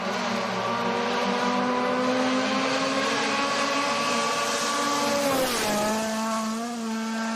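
Rally car engine at high revs, its pitch climbing slowly, then dropping sharply about five and a half seconds in as the car passes close, with a burst of tyre and gravel noise.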